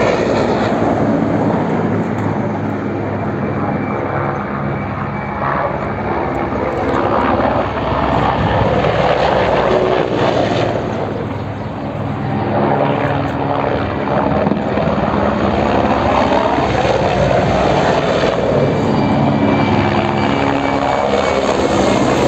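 Mi-8-type military helicopter flying low overhead: loud turbine and rotor noise with a steady hum, swelling and easing as it passes, dipping briefly midway and growing louder again near the end.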